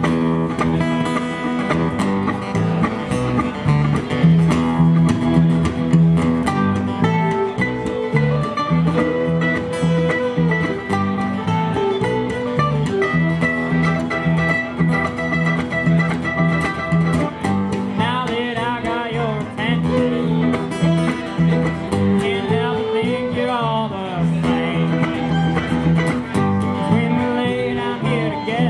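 Live acoustic band music with a bluegrass feel: a mandolin and an acoustic guitar playing over a steady, pulsing bass line. A voice comes in singing a little over halfway through.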